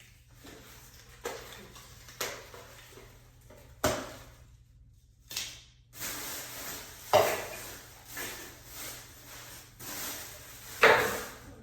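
Things being handled and set down: a series of sharp knocks and clatters, loudest about seven and eleven seconds in, with rustling in between. A brief total silence near the middle.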